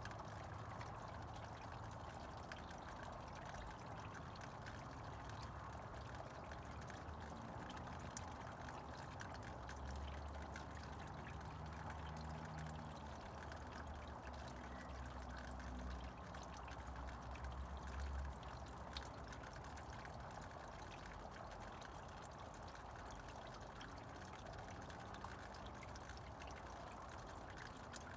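Snowmelt water trickling and running steadily, with fine drips and ticks through it. A low rumble comes in from about ten seconds to eighteen seconds.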